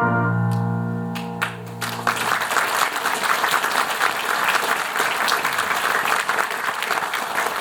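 A held musical chord, keyboard-like, dies away over the first two seconds while a few claps start, then an audience breaks into steady applause.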